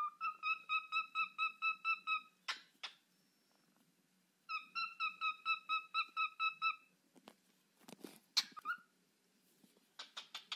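Cockatiel singing: two runs of quick, evenly repeated whistled notes, about six a second, broken by harsher screechy calls, with a rapid burst of short calls near the end.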